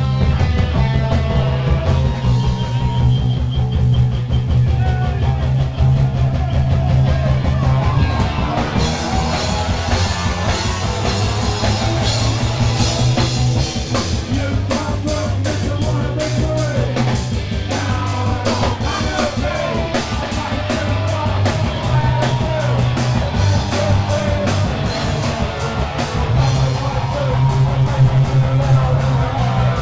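Live punk rock band playing: electric guitar, bass and drum kit, with a lead vocal. The drums and cymbals come in harder about nine seconds in.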